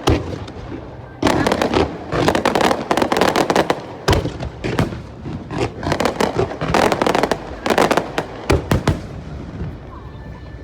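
Aerial fireworks shells bursting in rapid volleys of sharp bangs. The bursts thin out and fade near the end.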